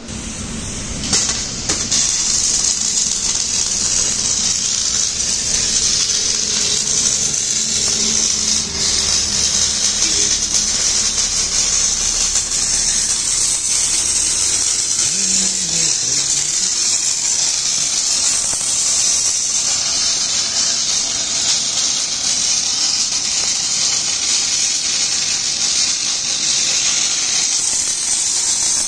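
MIG welding arc on the steel of a JCB front bucket, a steady crackling hiss that starts about a second in and runs on without a break.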